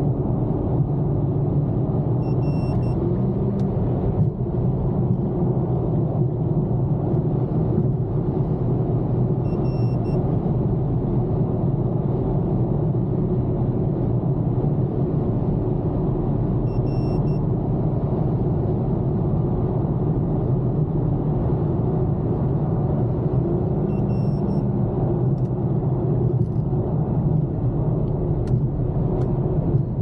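Steady in-cabin road noise of an Infiniti M37S cruising at highway speed: a low, even rumble of tyres, road and its 3.7-litre V6.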